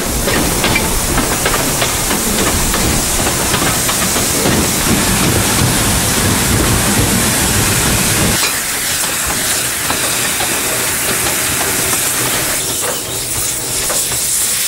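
Narrow-gauge (760 mm) forestry steam locomotive and its open carriages under way: a steady hiss of steam over the rumble of the train running on the track. The deep rumble drops away abruptly about eight seconds in.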